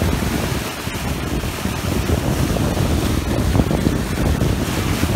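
Wind buffeting the microphone over the rushing hiss of water and spray along the hull of a sailing yacht moving under sail.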